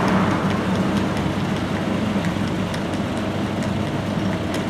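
Steady city street traffic noise: a continuous low drone with a steady hum from vehicles, with faint light clicks scattered through it.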